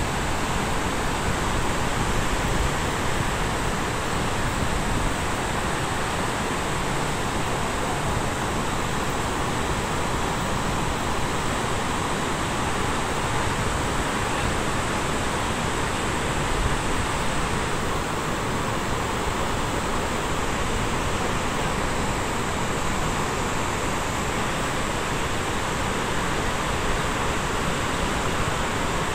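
Floodwater pouring down the concrete spillway of the Srisailam Dam: a loud, steady rush of water that does not let up.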